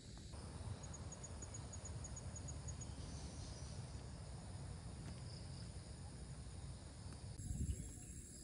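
Forest insects: a steady high-pitched drone, with a rapid chirping of about five pulses a second for two seconds near the start, over a low rumble.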